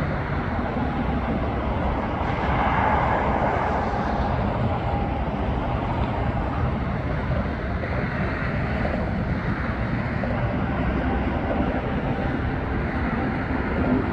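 Steady rumble of a diesel freight train's locomotives working along the line, blended with highway traffic noise.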